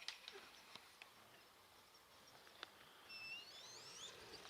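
Near silence, broken by a few faint clicks and then, about three seconds in, a bird's thin, high whistled calls that rise in pitch, several in quick succession.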